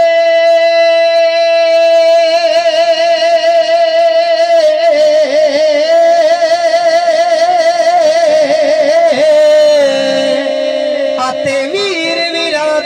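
A man's voice, amplified through a PA loudspeaker, sings Punjabi Sufi kalam. He holds one long steady note, then wavers through ornaments, and near the end settles on a lower note.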